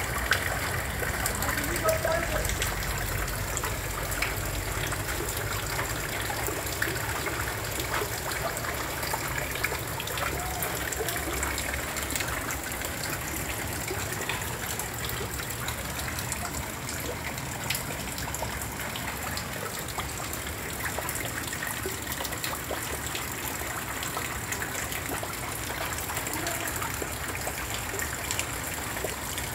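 Muddy floodwater flowing and gushing, a steady rushing noise with no breaks.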